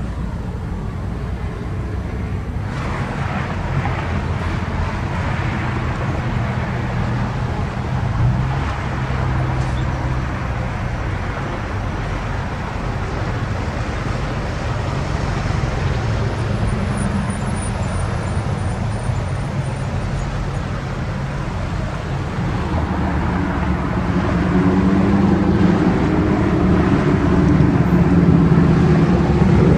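Road traffic passing: a semi-truck with a trailer goes by, then near the end a group of sport motorcycles rides past, their engines getting louder.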